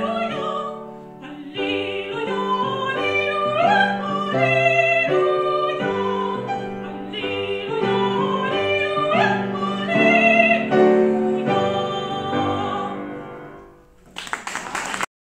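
A woman's operatic singing voice ends a held note about a second in. A grand piano then plays the closing passage alone and dies away. Applause starts near the end and is cut off abruptly.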